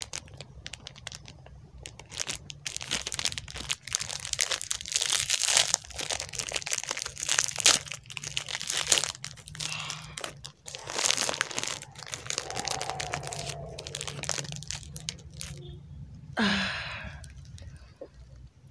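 A chocolate biscuit bar's plastic-and-foil wrapper crinkling and tearing as it is opened by hand, a long run of quick crackles that stops about three seconds before the end.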